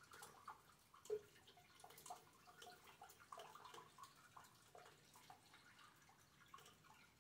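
Faint rain dripping: many irregular drops ticking and plinking close by, with one louder plink about a second in.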